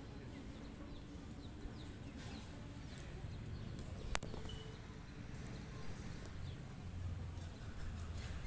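A futsal ball kicked once, a single sharp knock about four seconds in, over faint steady outdoor background noise with a few weaker taps.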